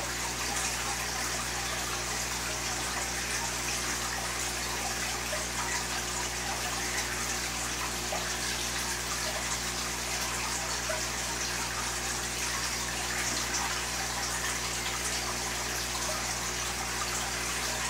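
Steady rush and trickle of water from a running aquarium filter, over a steady low hum.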